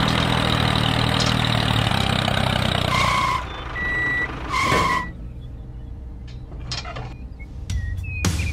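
A vehicle engine running, then three short high beeps like a reversing alarm about three to five seconds in. After that it is quieter, with a few light clicks.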